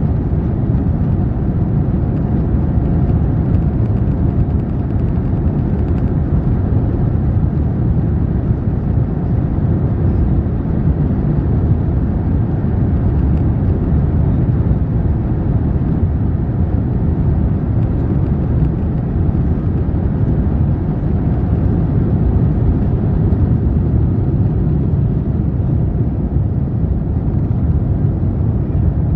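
Cabin noise of an Airbus A350-900 taking off, heard inside the cabin: its Rolls-Royce Trent XWB engines at takeoff thrust through the takeoff roll and into the climb. A loud, steady rumble.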